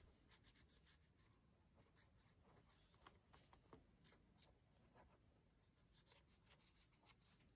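Faint scratching and tapping of a liquid chalk marker's tip on a coated black colouring card: an irregular run of small ticks as the tip is worked over the page.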